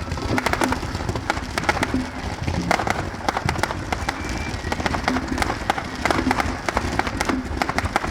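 Fireworks crackling and popping in rapid, irregular bursts, dozens of sharp cracks a second.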